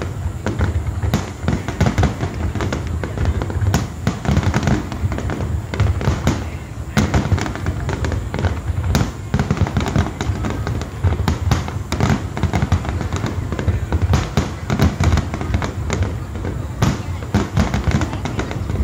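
Aerial fireworks shells bursting in quick succession, many sharp bangs and crackles overlapping over a continuous low rumble.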